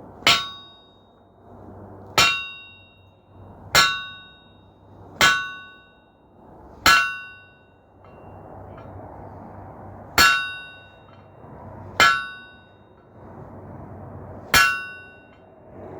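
Blacksmith's hammer striking a hot 3/4-inch square steel bar on the anvil, eight ringing clangs about one and a half to two seconds apart, with a longer pause about halfway through.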